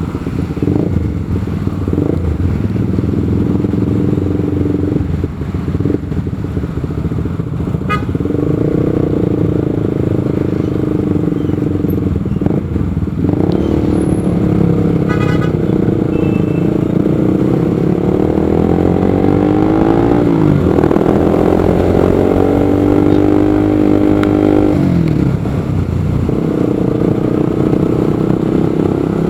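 Motorcycle engine running while riding in city traffic, with road and traffic noise; the engine pitch rises and falls with the throttle partway through. A brief horn toot sounds about halfway in.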